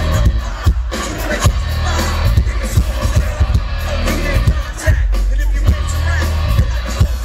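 Nu-metal band playing live through a big outdoor PA: distorted electric guitar and bass over a steady drum beat, loud and heavy in the low end.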